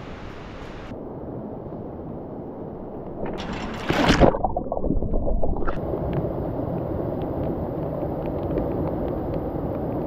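River water rushing over stones in a steady wash. About four seconds in a loud whoosh swells and falls away, and from about six seconds the churning rapids are louder.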